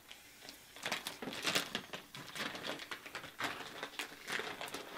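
Scratchy rustling, with light clicks and taps, on a hard plastic litter box as a cat climbs over its rim and into it. It starts about a second in and comes in irregular bursts.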